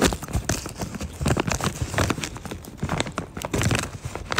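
Irregular clicks and knocks close to the microphone, several a second.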